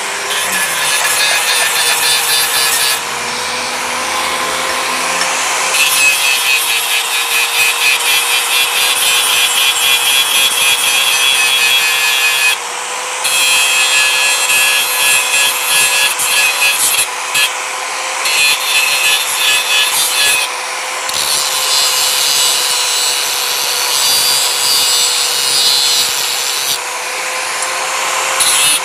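Angle grinder running steadily, its disc grinding the tip of a hardened car leaf-spring steel bar in repeated passes. The harsh grinding rasp breaks off briefly several times as the disc is lifted, while the motor's whine carries on.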